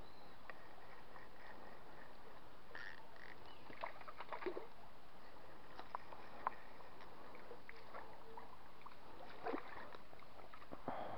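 A hooked fish splashing and thrashing at the surface of a creek near the end, after scattered light clicks and knocks from handling the fishing rod over a faint steady hiss of the outdoors.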